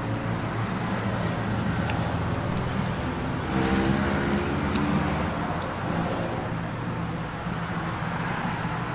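Street traffic: a steady engine hum over road noise, with a vehicle passing and growing louder about three and a half seconds in. A few faint clicks are heard.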